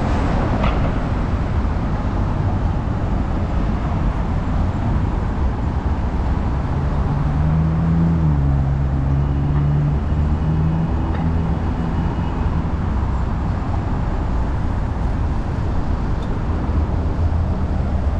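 Steady street traffic noise, with a heavy vehicle's engine passing from about seven to twelve seconds in.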